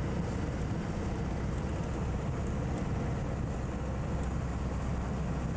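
Steady low rumble of a moving Volvo F12 truck: engine and road noise heard inside the cab, with no change in pitch or level.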